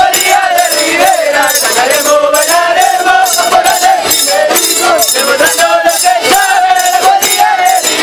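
Negritos dance music: a violin melody over the steady, rhythmic jingling of the dancers' small hand bells (campanillas), shaken together on the beat.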